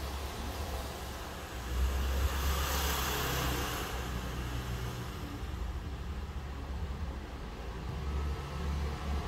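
Lexus RX ABS actuator pump motor running steadily while commanded by the diagnostic tool's air-bleeding routine, flushing brake fluid through the ABS unit; a low hum, louder and hissier from about two seconds in.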